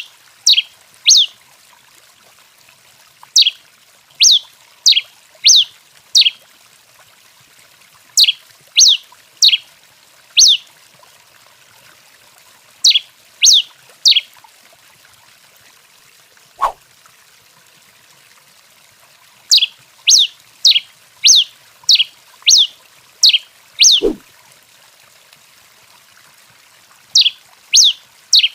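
Tico-tico-rei (pileated finch) singing: phrases of three to five sharp, high notes, each falling quickly in pitch, about two notes a second, repeated every few seconds. Twice, about midway and near the end, a brief lower sound falls steeply in pitch.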